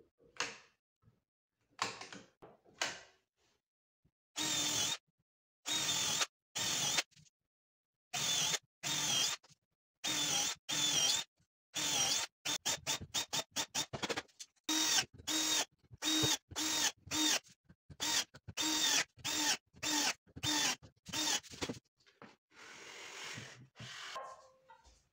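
Cordless drill-driver drilling into MDF, run in many short bursts of under a second each with a steady motor whine that dips in pitch as the bit bites. A few clicks come before it.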